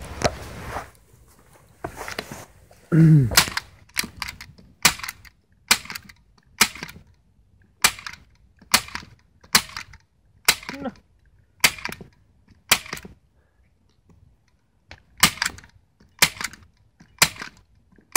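Hand staple gun firing staples into a lithium-ion battery, a sharp click about once a second, fifteen or so times, with a longer gap near the middle.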